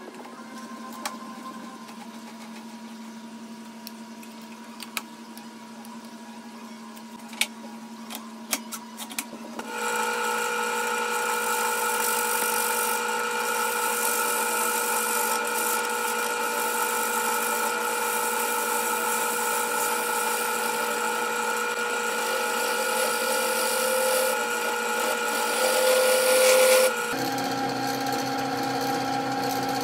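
Grizzly wood lathe spinning an aromatic cedar blank on a faceplate while a turning tool cuts into it: a steady machine hum with a hiss. It starts about ten seconds in after a quieter stretch with a few clicks, grows a little louder later on, then changes abruptly to a lower hum a few seconds before the end.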